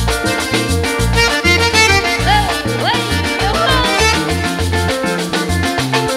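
Live Latin band playing an instrumental passage: button accordion over bass and percussion with a steady beat.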